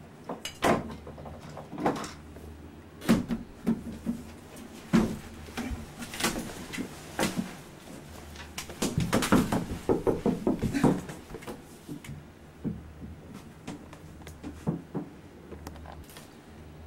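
Irregular knocks and clicks of things being handled at a bathroom medicine cabinet and shower curtain, with a busier run of knocking and rustling about nine to eleven seconds in.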